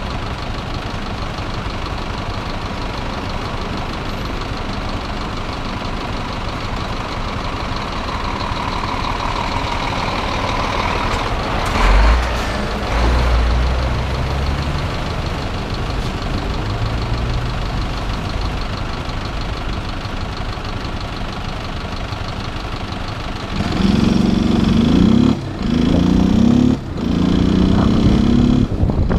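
Motorcycle engine idling, then about 24 seconds in it pulls away and accelerates, with two short breaks in the sound as it shifts up through the gears. A brief loud low rumble comes about twelve seconds in.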